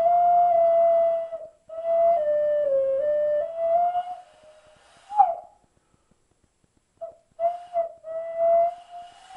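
Plastic 12-hole alto ocarina playing a slow melody in stepped notes, two phrases with a short breath between them. About five seconds in comes a brief squeaky note sliding upward. After a pause of about a second and a half, a few short notes lead into a held note near the end.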